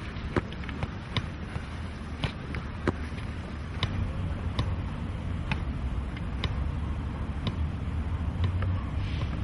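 A football being juggled: a short knock each time a foot or knee touches the ball, roughly once a second, over a steady low rumble.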